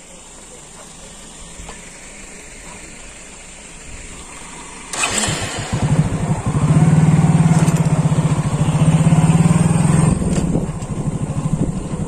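A vehicle engine starts about five seconds in and runs with a steady, rapid low pulse, loud up close, easing off slightly near the end.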